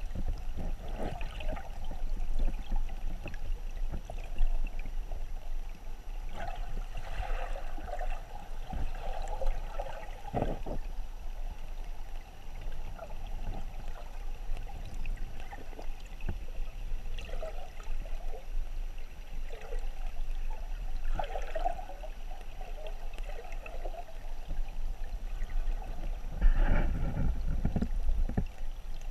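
Creek water heard through an underwater camera: a steady low rumble of current, with irregular bursts of bubbling and gurgling that swell a few times, most strongly near the end.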